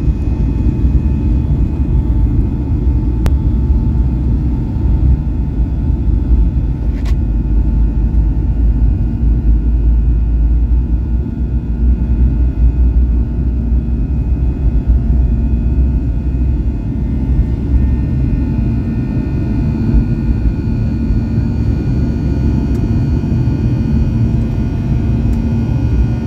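Jet airliner on its takeoff roll, heard from inside the cabin: a loud, steady low rumble of the engines at takeoff thrust and the wheels on the runway. The deepest rumble eases in the second half as the plane lifts off, leaving the engines' faint steady whine.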